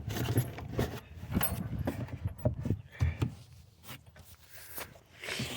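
Light knocks, clicks and rattles of handling as pieces of wood are fitted and wedged into place, thinning out and growing quieter after about three seconds.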